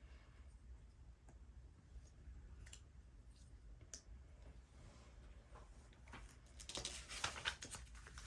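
Small plastic Lego pieces clicking as they are handled and pressed together: a few faint ticks, then a quick flurry of clicks over the last couple of seconds.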